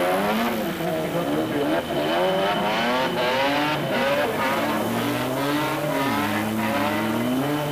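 BMW 325iX autocross car's engine revving hard, its pitch climbing and dropping again and again as the car drifts sideways through a bend.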